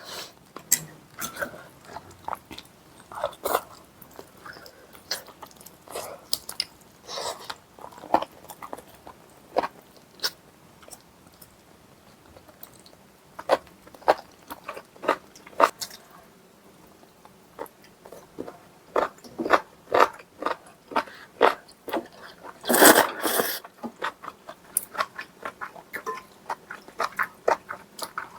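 Close-miked eating sounds: mouthfuls of braised spicy chicken stew being bitten and chewed, with scattered sharp clicks and crackles. A louder, longer burst of noise comes about three-quarters of the way through.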